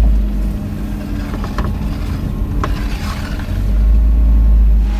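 Low rumble of a slowly moving vehicle, with a steady engine hum underneath. The rumble swells near the end.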